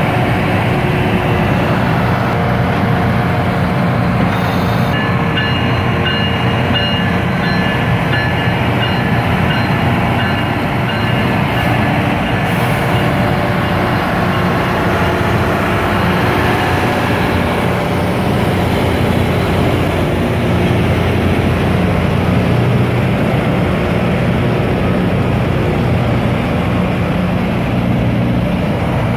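Loram rail grinder passing close by while grinding the rail: a loud, steady rumble of its diesel engines and grinding stones on the rail. Thin high ringing tones join about five seconds in and die away around seventeen seconds.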